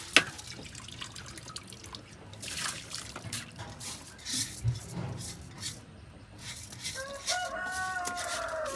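Water dripping and trickling with scattered light clicks and knocks, as washed rice is added to a large cooking pot (sufuria).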